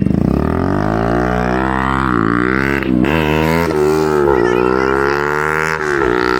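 Bajaj Pulsar NS200's single-cylinder engine through an SC Project full-system exhaust, accelerating hard past on a fly-by. The engine note climbs, then drops briefly and climbs again about four times as the rider shifts up through the gears.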